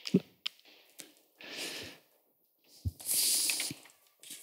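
A man breathing close to a headset microphone during a pause in speaking: a soft breath about a second and a half in and a louder, hissy breath about three seconds in, with a couple of soft thumps.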